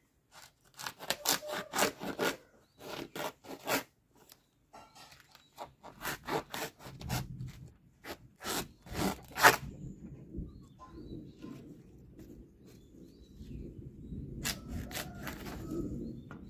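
Curved sickle blade cutting and scraping a dry areca palm leaf sheath: quick scraping strokes in two runs with a pause between, then a few scattered softer ones.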